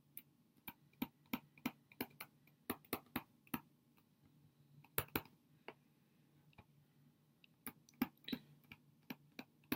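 Stylus tip tapping and clicking on a tablet screen during handwriting: faint, short clicks in irregular clusters with brief pauses between them.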